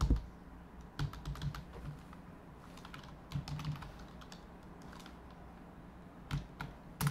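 Computer keyboard keystrokes, typed in a few short scattered clusters of clicks.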